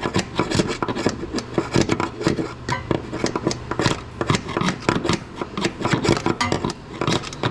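Rapid, irregular metal-on-metal taps and clicks as a seal-removal tool is worked into a Turbo 350 transmission's shift shaft seal. A shop fan hums steadily underneath.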